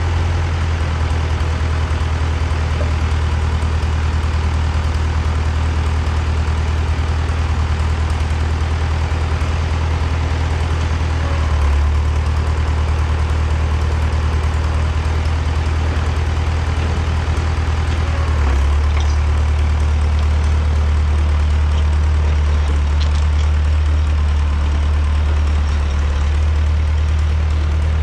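Four-cylinder diesel engine of a 1975 John Deere 450B crawler dozer running steadily just after starting. Its note shifts and grows a little louder about twelve and nineteen seconds in.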